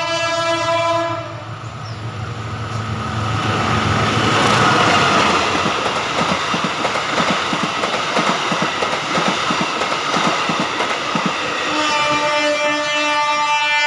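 Passenger train's horn sounding a chord that cuts off about a second in, then the train passing close at full power with loud rushing and rapid wheel clatter over the rail joints. Music comes in near the end.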